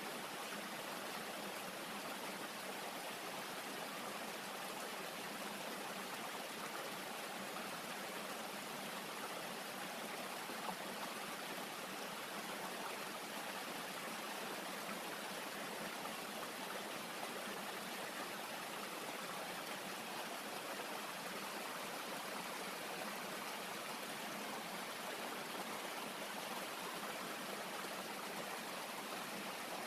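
A stream rushing steadily, an even unbroken sound of flowing water.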